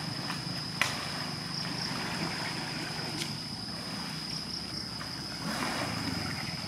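Water splashing and sloshing around Sumatran elephants bathing in a pond, with one sharp slap a little under a second in and a louder splash near the end. Underneath are a constant high-pitched whine and a steady low rumble.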